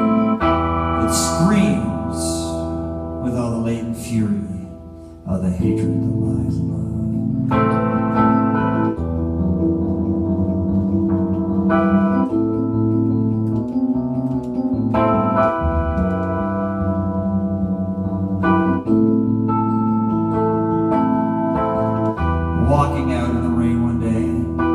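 Keyboard music with an organ-like tone: held chords over a bass line, changing every few seconds, with brief hissing swells near the start and near the end.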